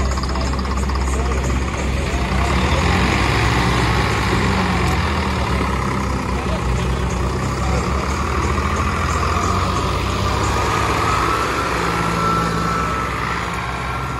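Tractor diesel engines running steadily under load, with people talking in the background. A thin whine rises over the engine noise about ten seconds in.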